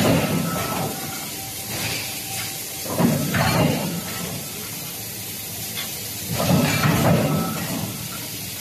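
Automatic hot-forging press line running in its cycle: about every three and a half seconds a burst of hiss and clatter, lasting about a second, once right at the start, again about three seconds in and about six and a half seconds in.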